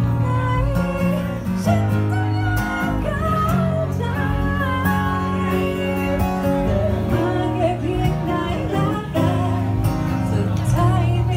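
Live acoustic guitar strumming with a singer's voice carrying a melody over it, a small duo's song played without a break.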